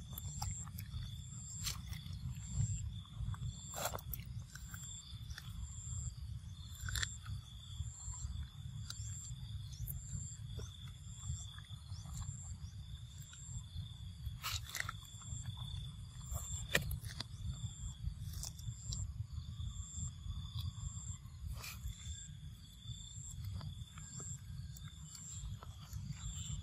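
Forest ambience: an insect chirping in short, evenly repeated high pulses over a steady low wind rumble. Scattered sharp clicks and crunches fit a macaque chewing food close by.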